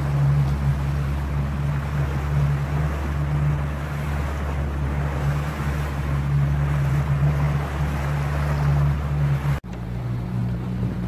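Motorboat engine running steadily under a rush of wind and water. Near the end the sound breaks off for an instant, and the engine's note is slightly different after the break.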